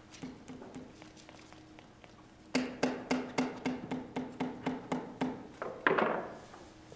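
A run of light, evenly spaced knocks, about four a second, each with a short low ring, starting a few seconds in, followed by one louder clattering knock near the end; a few fainter taps come before.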